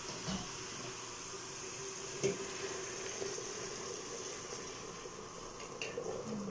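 Chicken in tomato-paste sauce sizzling in an aluminium pressure-cooker pot as water is poured in from a kettle and stirred with a wooden spoon, with a light knock about two seconds in.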